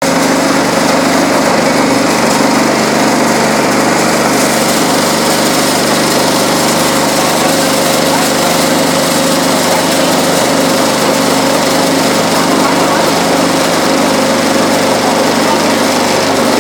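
Gherkin grading machine running: a steady, loud mechanical drone with a constant hum, as gherkins pass over the grader and drop onto the conveyor belt.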